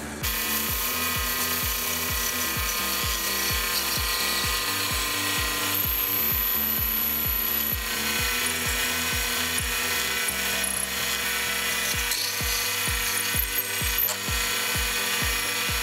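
Mini lathe parting off a brass bolt: the spindle motor runs and the tool cuts steadily into the spinning brass. Background music with a steady beat plays underneath.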